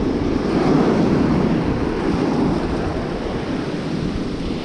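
Surf washing in over the shallows, a steady rushing noise, with wind buffeting the microphone.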